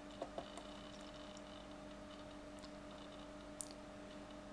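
Quiet room tone with a steady faint electrical hum, and a few soft computer-mouse clicks: a quick pair near the start and one more near the end.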